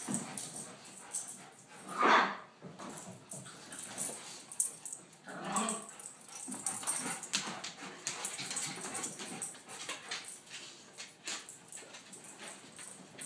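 Two dogs playing rough, one giving a short, loud bark about two seconds in and a weaker one around five and a half seconds, with scuffling and clicking of paws in between.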